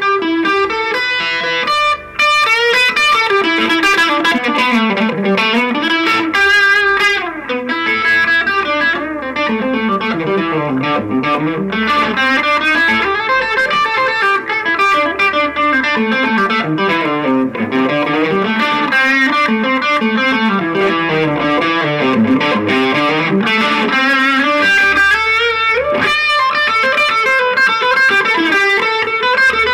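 Electric guitar played through an MV Electronics Shredhead distortion pedal into a cheap amplifier, fast distorted lead runs sweeping up and down the neck.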